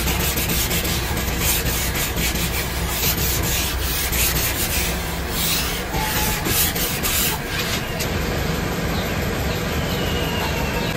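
Cloth-wrapped styrofoam pad rubbed back and forth over a car's plastic cowl trim, working in a homemade plastic-blackening liquid. It makes repeated scratchy swishing strokes, most of them in the first seven seconds, over a steady low hum.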